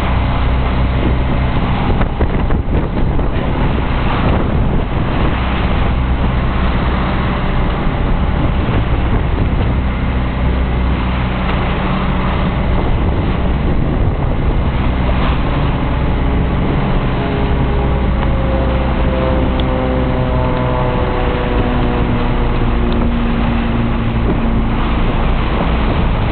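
A sailboat's engine running steadily while motoring through choppy water, mixed with heavy wind buffeting the microphone. In the last several seconds a slowly falling whine joins in.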